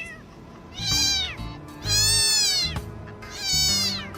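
A cat meowing three times, each meow long and arching up then down in pitch, over background music.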